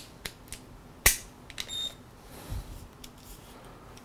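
Plastic clicks of a Speedhex Flipout cordless screwdriver's pivoting head joints being moved by hand: a handful of sharp clicks, the loudest about a second in, with a brief high squeak just before the two-second mark and a soft thump after it.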